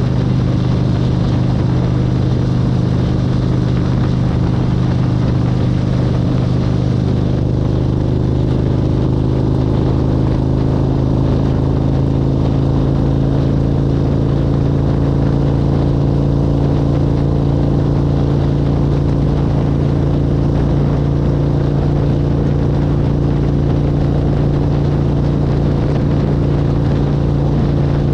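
Car driving at highway speed, heard from inside the cabin: a steady low engine drone with road and tyre noise, the drone's pitch edging up slightly partway through.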